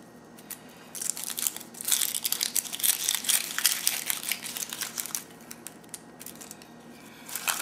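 Dry, papery onion skin being peeled off by hand: a dense crinkling and tearing crackle that starts about a second in and dies down after about four seconds.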